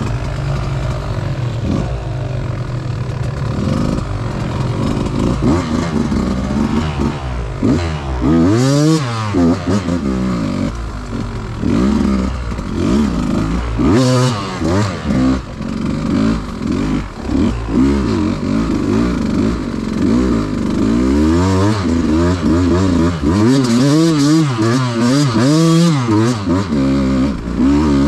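Enduro dirt bike engine being ridden over rough ground, revving up and falling back again and again in short throttle bursts, with a long run of quick blips near the end.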